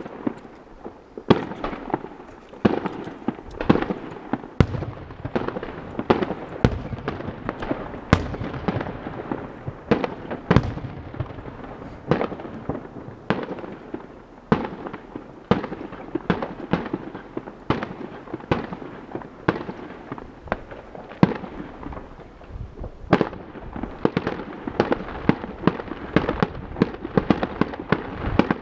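Fireworks going off: a dense, irregular run of sharp bangs, several a second, over a steady rumble of more distant explosions, with no let-up.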